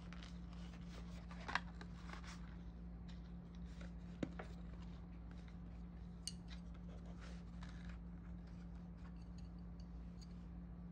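Faint, steady low room hum with a few light clicks and taps from handling a kraft-paper takeout salad box.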